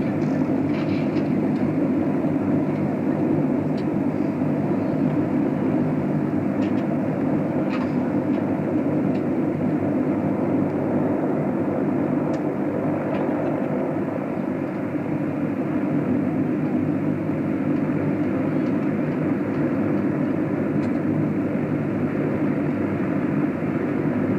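Ferry boat's engine running at a steady pace, a continuous low drone with a few faint ticks over it.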